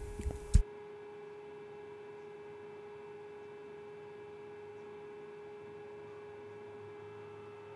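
A faint, steady pure tone at one unchanging pitch with fainter higher tones above it, like an electronic whine. Two short clicks come in the first second, the second one a sharp tap.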